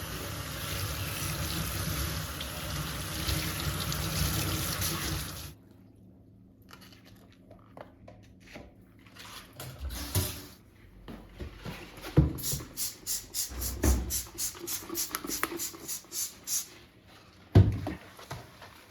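Tap water running into a kitchen sink, shut off abruptly about five seconds in. Then light handling knocks, a quick run of light clicks at about five a second, and a sharp knock near the end.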